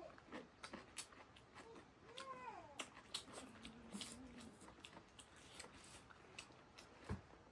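A single short animal call, rising then falling in pitch, about two seconds in, among faint scattered clicks and taps.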